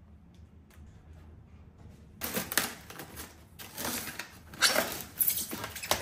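Polystyrene foam packaging being handled and pulled apart inside a cardboard box: faint small ticks, then from about two seconds in a run of loud, irregular scraping and rustling.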